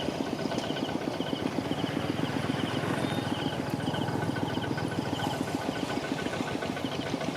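A small engine running steadily at idle, with a fast, even firing beat.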